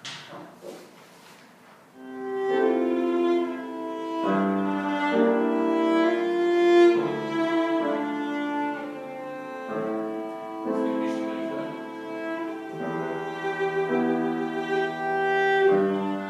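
Violin and cello playing together, with long held notes that change every second or so; the playing starts about two seconds in after a few faint sounds.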